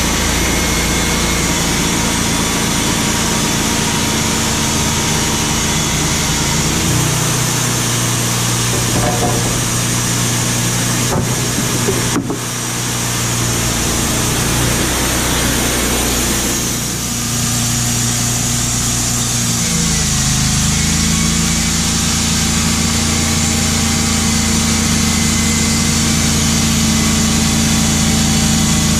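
Wood-Mizer LT35HD band sawmill's engine running steadily. Its note shifts about a quarter of the way in, and it dips and recovers about two-thirds of the way through.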